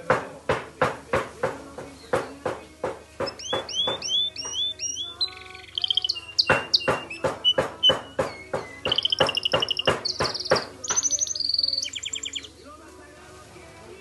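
White Spanish Timbrado canary singing: a run of sharp, percussive clucking notes about three a second, then whistled rising notes and fast trills. The song stops about twelve seconds in.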